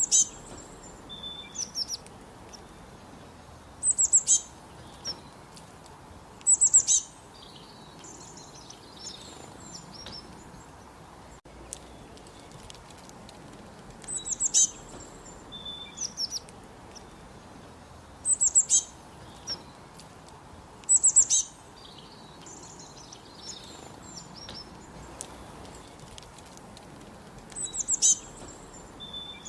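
Northern cardinal singing in short loud phrases of quick, high, down-slurred notes, repeated every few seconds, with fainter bird notes in between over a steady background hiss.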